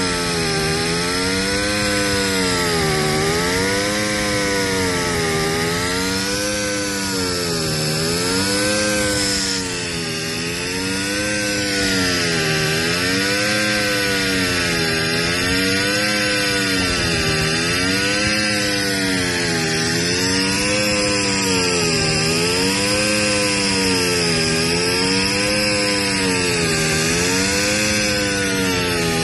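Portable in-situ crankpin grinding machine running on the Yanmar S185L-ST's crankshaft, grinding a crankpin damaged by a failed bearing. Its motor hum rises and falls in pitch about once every two seconds, with a steady grinding hiss above it.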